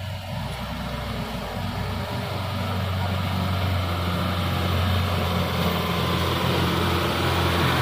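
Hino Dutro 136 HD light truck's four-cylinder diesel engine pulling steadily up a muddy climb, growing louder as the truck comes closer.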